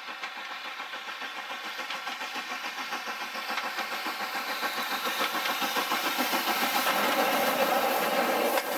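Two-cylinder steam locomotive, SR N15 'King Arthur' class 30777 Sir Lamiel, working a passenger train with a fast, regular chuffing exhaust beat. The beat grows steadily louder as the engine approaches and draws level.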